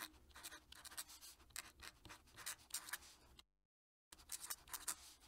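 Fountain pen nib writing cursive on paper: a faint run of short pen strokes, broken by a brief dead gap about three and a half seconds in before the strokes resume.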